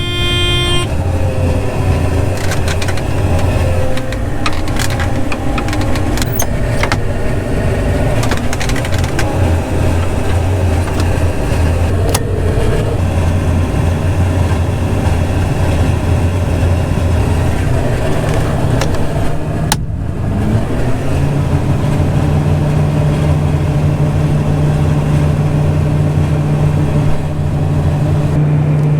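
John Deere 9500 combine's diesel engine running steadily, heard from inside the cab. About two-thirds of the way through the drone dips briefly, then settles at a higher pitch.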